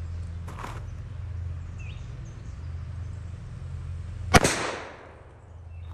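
A single shot from a Pedersoli Liegi screw-barrel black-powder derringer, fired by percussion cap, about four seconds in: one sharp report with a short echoing tail.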